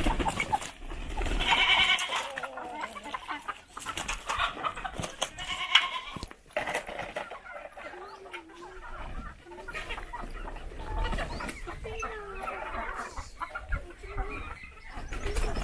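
Native country chickens clucking and calling in a farm flock, with calls coming again and again.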